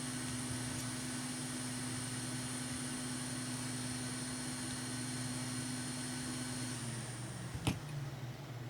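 A small electric motor running steadily with a high whine, then switched off about seven seconds in and spinning down, followed by a sharp click.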